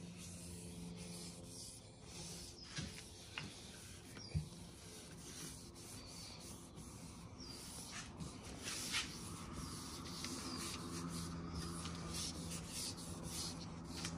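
A nitrile-gloved hand rubbing and wiping over the end-grain face of a walnut, maple and zebrawood cutting board, with a few light knocks and a low steady hum underneath.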